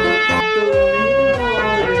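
Harmonium music with held notes, over a low drum beating at a steady rhythm, each stroke dropping in pitch.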